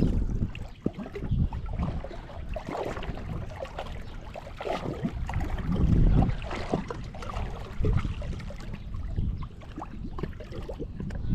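Water sloshing and splashing against the hull of a 1997 Arctic Cat TigerShark Monte Carlo 1000 personal watercraft, over an uneven low rumble.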